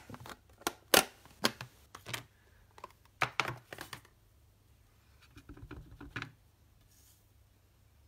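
Clear plastic stamp case and acrylic stamping block clicking and knocking as they are handled and set down on a desk: a quick run of sharp clicks over the first four seconds, then a faint rustle.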